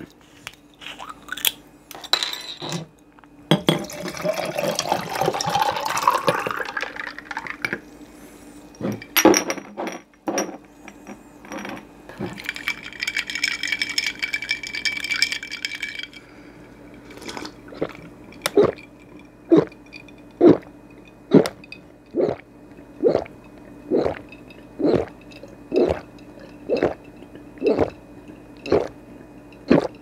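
A bottle cap twists off with clinks of glass, then a ginseng honey-water drink is poured over ice into a glass jar, the pour's pitch rising as the jar fills. After a hissing stretch, there is a steady series of swallowing gulps, about one a second, as the drink is gulped down from the jar.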